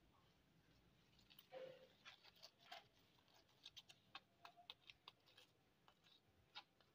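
Faint, irregular soft clicks and light scrapes of a plastic spoon spreading desi ghee over a tandoor-baked besan roti, starting about a second and a half in.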